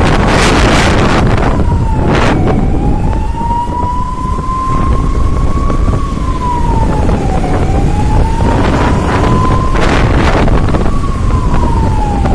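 A siren wailing, its pitch rising slowly and falling back more quickly about every five seconds, over heavy wind rush on the microphone of a moving motorcycle.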